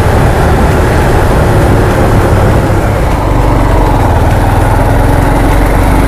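Motorcycle engine running while the bike is ridden at road speed, with wind rushing over the microphone; the engine note settles into a steady hum about halfway through.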